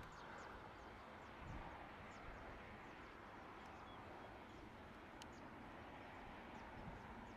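Faint, steady distant hiss of a Dornier 328JET's turbofans at taxi power, with small birds repeatedly giving short, high, falling chirps over it.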